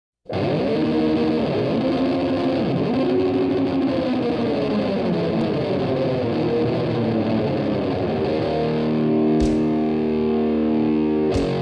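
Doom metal recording opening on heavily distorted, fuzzed electric guitar, its notes wavering and bending for about eight seconds. Then slow, sustained chords set in, with a couple of drum hits.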